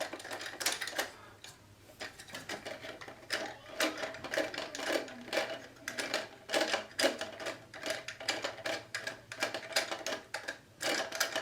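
Plastic parts of a Fluidmaster 400A toilet fill valve being adjusted by hand: many quick, irregular clicks and rattles.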